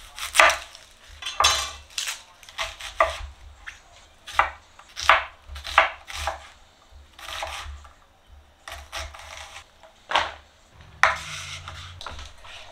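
A chef's knife cutting through an onion onto a bamboo cutting board, with irregular sharp knocks of the blade on the wood about every half second to a second. Near the end comes a longer scraping, rustling noise.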